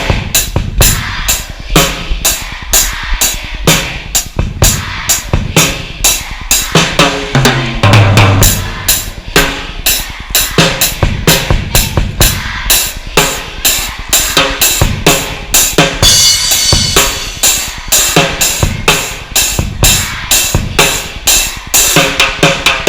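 Music driven by a steady, fast drum-kit beat of bass drum and snare, with a few held notes over it.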